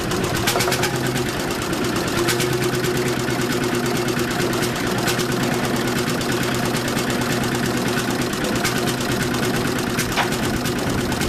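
Engine idling steadily, with many sharp clicks and knocks over it.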